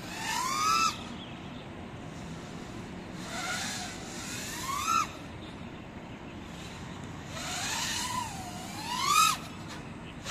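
FPV quadcopter's electric motors whining in three throttle punches, the pitch gliding up and cutting off sharply each time, the last one the longest and loudest, with a steady hiss between them.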